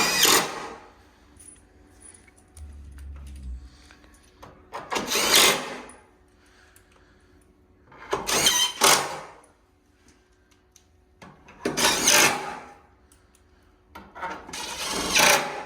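Bolts being driven in with a power drill-driver, five short bursts of about a second each, a few seconds apart.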